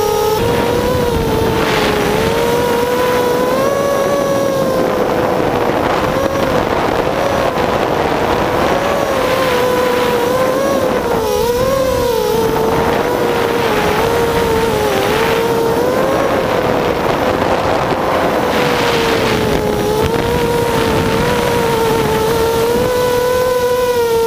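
Mini racing quadcopter's brushless motors (2208, 2000 kV) and propellers whining, heard from its onboard camera, the pitch wavering up and down constantly with throttle changes, with repeated rushes of wind noise.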